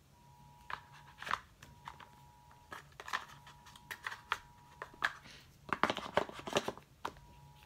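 Packaging and accessories from a new iPhone box being handled: scattered rustles and small clicks and taps, busiest about six seconds in.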